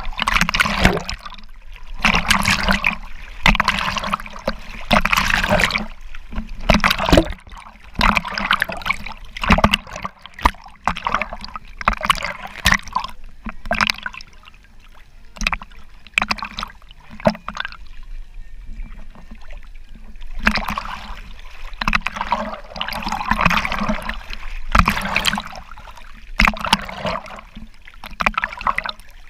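Water splashing and sloshing in irregular bursts every second or two, over a steady low hum.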